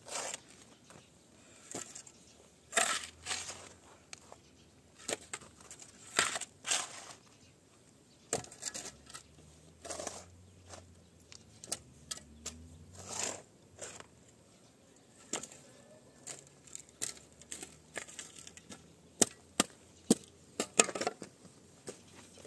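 A spade digging dry, stony soil: irregular strokes of the blade chopping and scraping into dirt and gravel, with a quick run of sharp clicks near the end.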